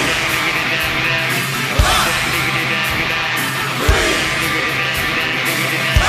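Live rock band playing, led by electric guitar, with a heavy low hit about every two seconds and a sweeping sound that rises and falls with each hit.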